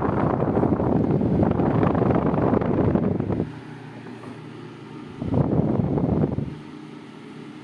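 Arno Silence Force VF30 table fan running: its airflow buffets the microphone as a loud wind rumble for the first three seconds or so and again briefly about five seconds in, and between the gusts only the fan's steady, quieter hum remains.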